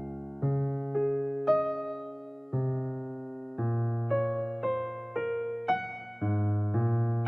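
Background music: a gentle electric piano melody, struck notes and chords that each fade before the next, about one or two a second.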